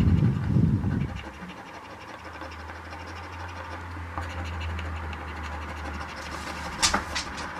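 A coin scraping the coating off an instant scratch lottery ticket in repeated short strokes. A dull low thump comes in the first second, a low steady hum runs underneath, and sharper scrapes come near the end.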